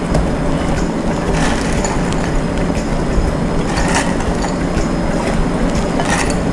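A few sharp clicks of silicone-tipped metal tongs against a glass bowl as crispy fried tuna pieces are dropped into a saucepan of bubbling milk-and-cheese sauce. Under them runs a steady low rumbling noise.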